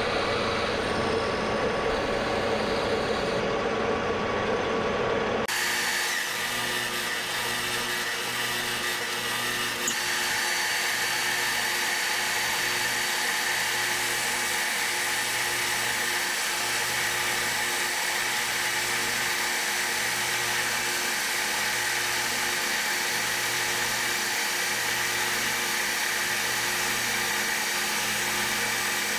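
Metal lathe taking a turning pass on a steel bar with a carbide insert: steady machine running and cutting noise. About five seconds in the sound changes abruptly, and from then on it is sped up with the footage to four times speed, with a high whine and a low hum that pulses regularly.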